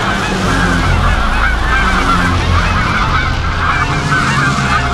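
A flock of geese honking, many overlapping calls at once, over a low steady rumble.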